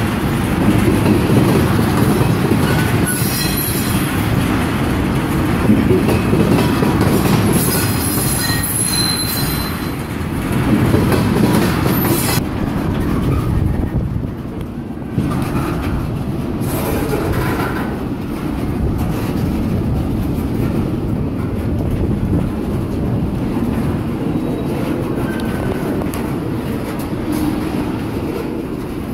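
Loaded freight tank cars rolling past close by: a steady rumble of steel wheels on rail with clacking over the trackwork. High wheel squeal rides on top for the first twelve seconds or so, then drops away.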